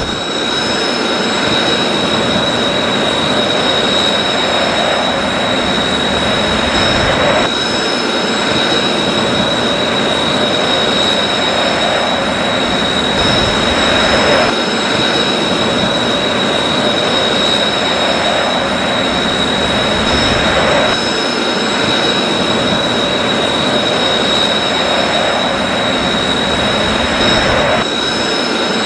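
Jet engine sound effect played by a 1/32 scale F-4EJ Phantom II model's sound unit: a steady turbine roar with a high whine over it. It is a short loop that repeats about every seven seconds.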